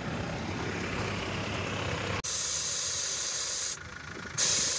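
Low vehicle rumble, then about two seconds in, a sudden switch to air hissing out of an off-road tyre through a dial-gauge tyre deflator as the tyre is aired down. The hiss stops for about half a second near the end, then comes back louder.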